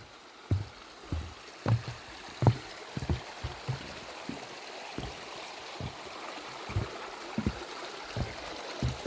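Walking footsteps, a low thud about every two-thirds of a second, crossing a small footbridge, over a running creek that grows louder partway through.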